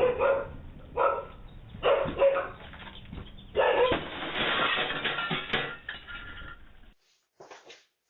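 A dog barking repeatedly, several barks over the first few seconds, heard through a doorbell camera's narrow-band microphone; it stops about seven seconds in.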